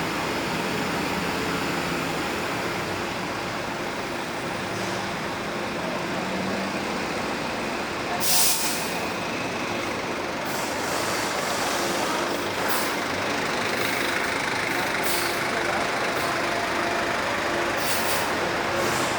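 Bus running steadily, with a short sharp air-brake hiss about eight seconds in and several fainter hisses after it.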